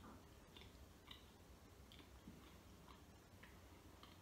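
Near silence with faint mouth sounds of someone chewing a chocolate-glazed donut: small, soft, irregular clicks about two a second.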